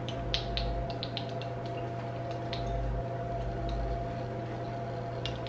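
A steady low hum with a faint steady tone under it, with scattered light clicks and taps of small objects being handled.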